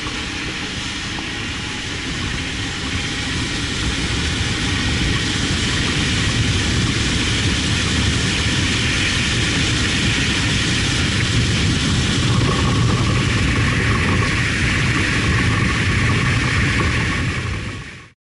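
Cabin noise of a tuned Ford Explorer Sport with its twin-turbo EcoBoost V6 making a quarter-mile drag run: engine, wind and road noise that grows louder over the first few seconds and then holds steady. It cuts off abruptly near the end.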